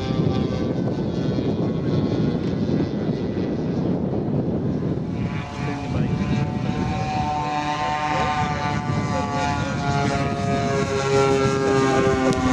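Large-scale radio-controlled F-82 Twin Mustang model's two propeller engines running in flight, the engine note shifting in pitch as the model passes and turns.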